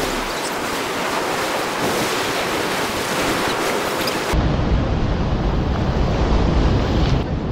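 Waves washing against the granite blocks of a jetty, with wind on the microphone. About four seconds in, the sound changes abruptly to a heavy low wind rumble buffeting the microphone.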